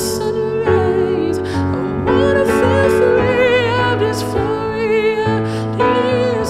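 A man singing with vibrato, with piano accompaniment, in a live performance of an alternative-pop song.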